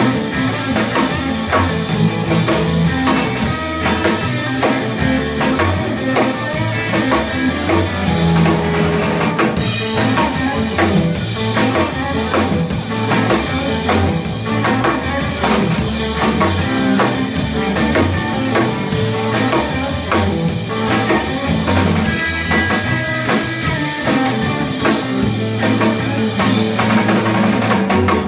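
Live instrumental surf rock: electric guitars playing over a drum kit with a steady beat, snare rimshots and bass drum.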